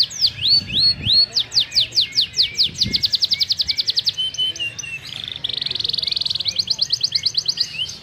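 A domestic canary singing a long, varied song. It opens with repeated down-slurred whistles, about three a second, which speed up into fast trills. About five seconds in comes a buzzy roll, and then a rapid trill again.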